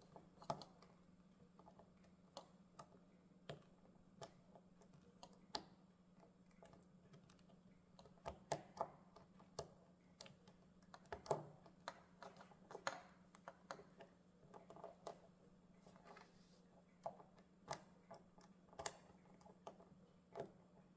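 Small, irregular metal clicks and taps of a pick raking the wafers of a Honda S600/S800 ignition switch lock cylinder to work the cylinder free.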